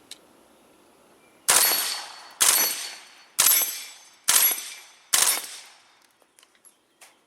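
Five suppressed 9mm shots from an HK MP5 fitted with a short Pilum M suppressor on a 3-lug mount, fired one at a time about a second apart, each with a short decaying tail. A few faint clicks follow near the end.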